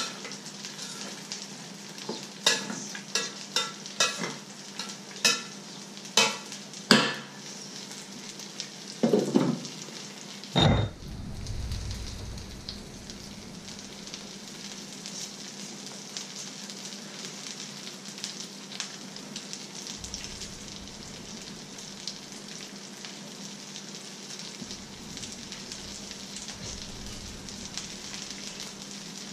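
Fish fillets and egg frying in a pan, a steady sizzle throughout. Over the first ten seconds or so a spoon knocks repeatedly against a metal saucepan as it is stirred, ending in a louder metal clank about ten and a half seconds in.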